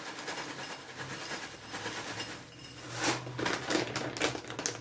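Granola being poured into a bowl: a rattle of many small clicks that grows denser and louder about three seconds in.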